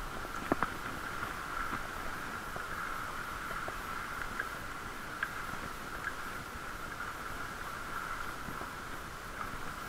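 A bicycle being ridden, heard through a camera sealed in a waterproof case: a steady whirring hum with a few scattered clicks and rattles.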